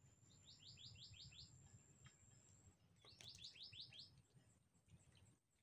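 A small bird calling faintly twice, each call a quick run of about six falling notes, the two calls close to three seconds apart. A thin, steady high whine runs alongside and stops about halfway through.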